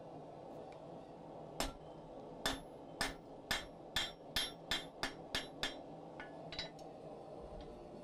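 Hand hammer striking a hot round steel bar on the anvil's rounded edge: about ten ringing blows that quicken from about one to about three a second, then a few lighter taps near the end. The blows drive the bar's short forged wedge over the edge, splitting it into a cleft that will become filler material for a forge weld.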